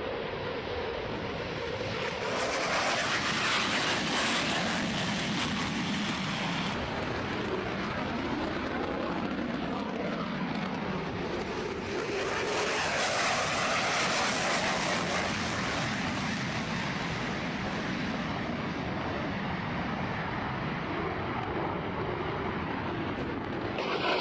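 Jet engine noise of fighter jets flying past: a steady rushing roar that swells a couple of seconds in, drops off sharply a few seconds later, and swells again about halfway through.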